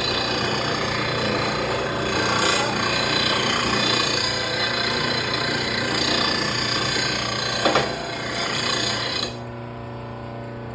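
Electric mower blade sharpener's grinding wheel grinding the edge of a steel lawn mower blade, a dense, rasping grind with a sharp knock shortly before it stops about nine seconds in. After that the motor and wheel keep spinning free with a steady hum.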